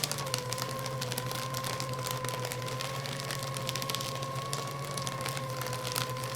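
Electric paper shredder running and shredding paper: a steady motor whine and hum under a dense crackle of paper being cut. The whine dips slightly in pitch just after the start.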